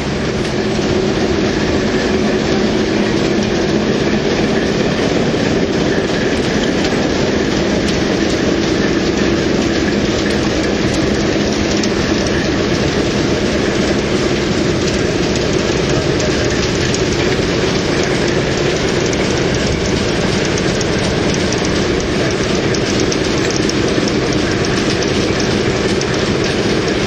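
Class 08 diesel shunter's English Electric six-cylinder engine running steadily under load as it shunts a dead steam locomotive along the track.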